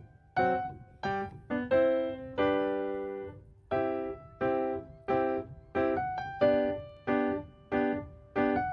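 Background music: a piano or electric-piano melody of separate notes, each struck and fading, about two a second.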